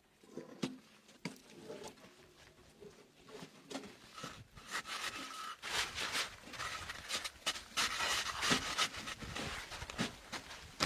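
Repeated rasping, scraping strokes, soft at first and louder from about halfway through.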